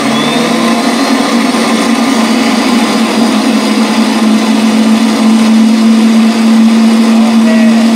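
Twin-motor 25,000 lb Hi-Winch electric winch running at 24 V with no load, powering out its empty drum: a steady, even motor-and-gear whine after a brief rising spin-up at the very start. It runs at about 34 metres a minute of line speed.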